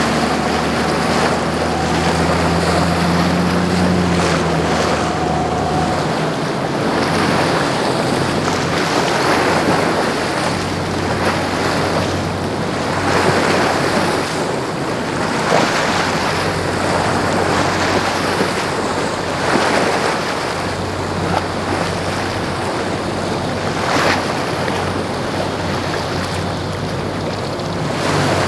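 Azimut 54 motor yacht's engines running as it passes at speed, a steady low hum that cuts off about six seconds in. After that, waves and wake wash rise and fall every second or two and wind buffets the microphone, over a faint low engine hum from a slow-moving Sunseeker Manhattan 66.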